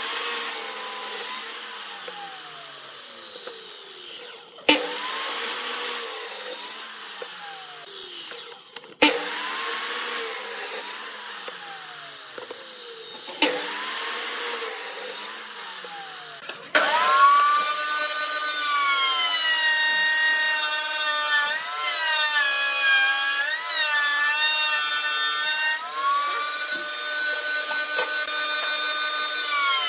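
Compound miter saw cutting a pine board: four times the motor comes on suddenly, bites through the wood and then spins down with a falling pitch. About two-thirds of the way in, a table-mounted router starts abruptly and runs with a steady high whine that dips in pitch several times as it cuts into the pine.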